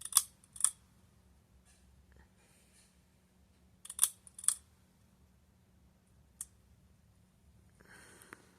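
Ceiling fan pull-chain switch being pulled: two pairs of sharp clicks about half a second apart, one at the start and one about four seconds in, then a single fainter click. A brief rustle comes near the end.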